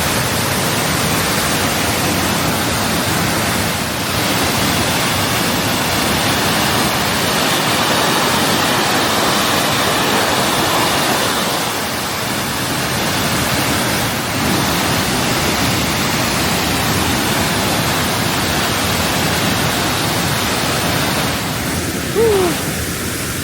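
Waterfall, a loud steady rush of falling water. A short pitched gliding sound comes in near the end.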